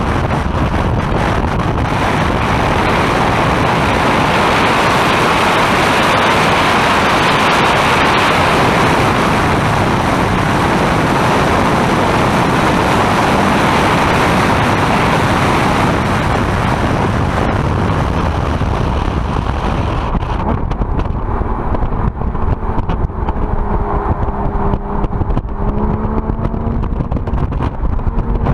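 Heavy wind rush over a camera mounted on the outside of a car driven at speed on a race track, with the engine under it. About twenty seconds in the wind noise falls away as the car slows, and the engine's note comes through, its pitch rising and falling.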